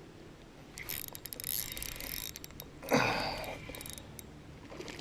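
Fishing reel being worked: a run of rapid mechanical clicking and ticking, with one louder short rush about three seconds in.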